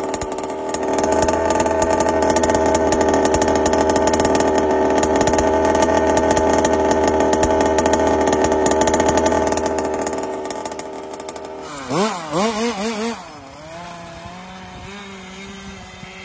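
Sound effect of a small engine running hard: a loud, steady, raspy buzz that fades after about ten seconds. Around twelve seconds there is a short run of wobbling pitch swoops, then a quieter steady tone.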